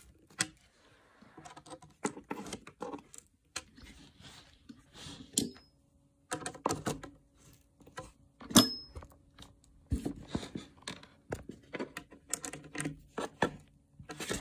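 A hand-held Phillips screwdriver turning a screw into a particleboard furniture panel: irregular clicks and scrapes of the metal tip in the screw head. Two sharper metal clicks with a brief ring stand out, the louder about two-thirds of the way through.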